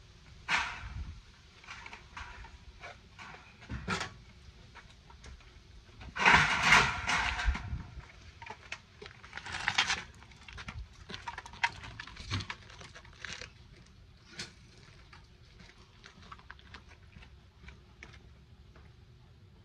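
Bicycle being wheeled out and handled: scattered knocks, rattles and ticks, with a louder burst of rattling about six seconds in and another about ten seconds in.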